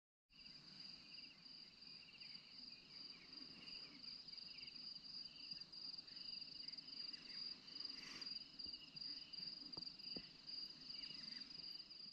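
Faint evening chorus of insects: a steady, high, pulsing trill with a second, lower trill beneath it, over a low background rumble. A single click about eight seconds in.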